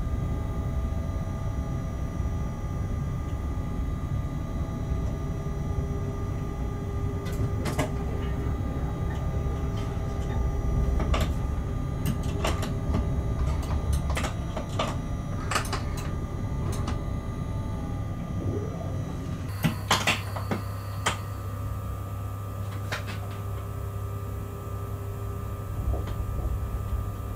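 Locomotive cab at a halt, with the steady hum of the locomotive's equipment and a series of clicks and knocks from cab doors and fittings being handled. The loudest is a cluster of door knocks about twenty seconds in, after which the background changes to a lower, steadier drone.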